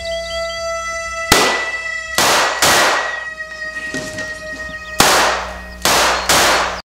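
Six revolver gunshots, unevenly spaced, each trailing off, over a held musical drone; the sound cuts off abruptly just after the last shot.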